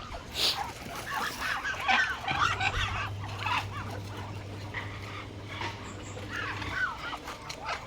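Farmyard poultry (chickens and ducks) calling, many short overlapping calls, busiest in the first few seconds, over a steady low hum.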